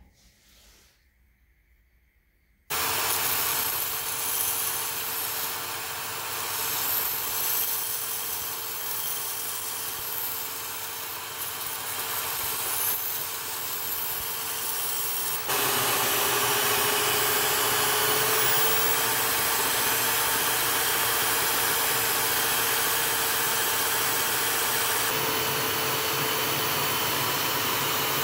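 Belt grinder running with a steel knife blade held against the belt to grind its bevels: a loud, steady grinding hiss over the motor's hum. It starts suddenly about three seconds in after a short quiet, and changes abruptly midway to a steadier, slightly louder grind.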